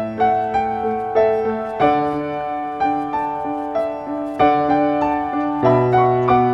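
Background music: a gentle piano melody with notes struck about twice a second over sustained chords.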